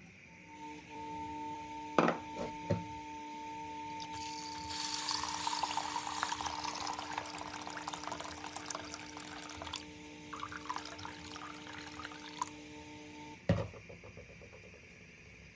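Boiling water poured from a kettle into a stainless steel pot of split peas, pouring and splashing for about eight seconds. There are a couple of knocks about two seconds in and a loud knock near the end. A steady hum runs underneath until that last knock.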